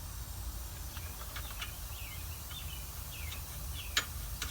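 Faint bird chirps over a steady low background hum, with a few light clicks and a sharper click about four seconds in.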